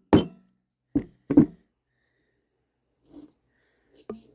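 Four sharp metallic knocks with short ringing from the worn old wheel hub bearing assembly being handled and turned by hand. Two knocks come close together about a second in, and one near the end.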